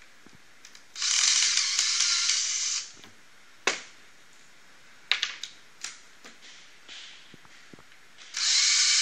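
Cordless DeWalt drill-driver with a No. 2 Phillips bit backing a screw out of the end of a handle, run in two spells: about a second in for about two seconds, and again near the end. A few short knocks in between.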